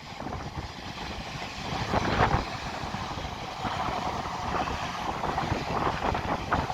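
A pair of Class 444 electric multiple units running through the station without stopping: a steady rush of wheels on rail with a few short clicks.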